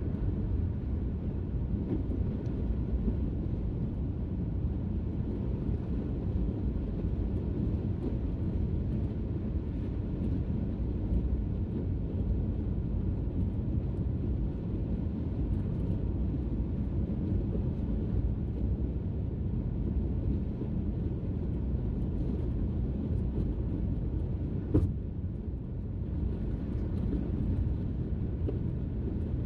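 Steady road noise inside a car cruising on a highway: an even low rumble of tyres and engine. A single sharp click sounds once near the end.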